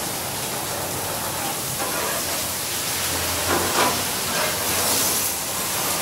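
Burgers and sausages sizzling on a gas grill: a steady hiss.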